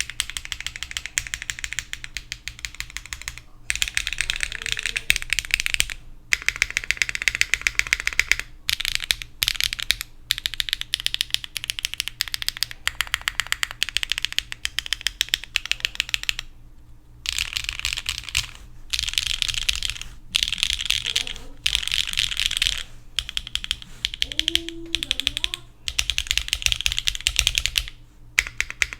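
Fast typing on a mechanical keyboard with HMX Emo switches on a carbon-fibre plate, no foam, fitted with GMK 8008 ABS double-shot keycaps: rapid keystrokes in runs of a few seconds with brief pauses between them.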